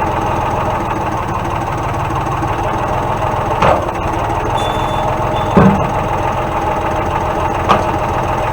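Tractor engine idling steadily, with three sharp knocks about three and a half, five and a half and seven and a half seconds in.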